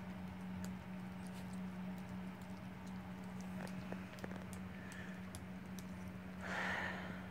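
An old dog with only a few teeth chewing a crunchy treat: scattered small crunching clicks, with a short breathy noise near the end.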